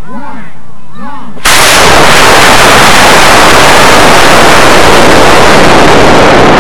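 Model rocket lifting off, heard from a camera riding on the rocket. After a few short warbling tones, a very loud, steady rush of motor and wind noise over the onboard microphone starts suddenly about a second and a half in and holds as the rocket climbs.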